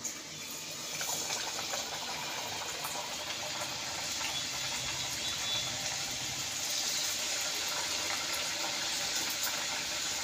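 Spinach chaklis deep-frying in hot oil: a steady sizzle that swells about a second in as the first goes into the oil, and grows louder again around six seconds in as a second one is dropped in.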